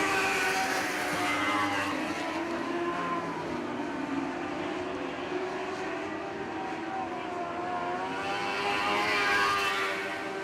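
Lightning sprint cars racing around an oval, several engines at high revs, their pitch rising and falling through the corners and straights. The sound swells louder near the end as the pack comes by.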